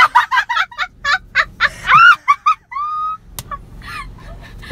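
A woman laughing hard in quick, stuttering cackles. The laugh ends in a short rising squeal about three seconds in, followed by a sharp click.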